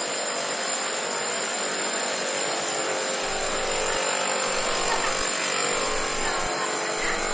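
A machine running steadily: an even whirring noise with a constant hum that holds level throughout.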